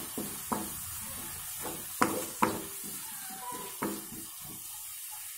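Wooden spatula stirring shallots, tomato masala and garlic cloves in a metal kadai: scrapes and knocks against the pan, two sharp knocks about two seconds in, over a steady sizzle that carries on alone after about four seconds.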